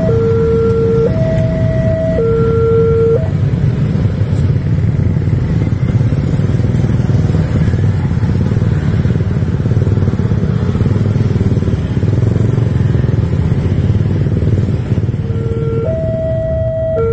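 A level-crossing warning alarm alternates between two electronic tones about once a second and stops about three seconds in, as the barrier lifts. After that, many motorcycle and scooter engines run and pull away across the tracks in a dense, steady mix. Near the end the two-tone crossing alarm starts again.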